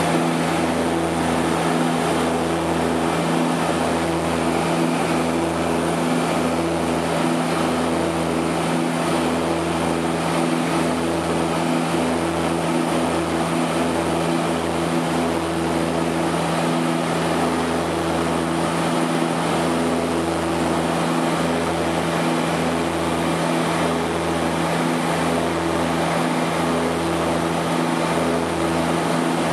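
Seaplane's propeller engines running steadily in flight, heard from inside the cabin as a constant hum with a few steady tones.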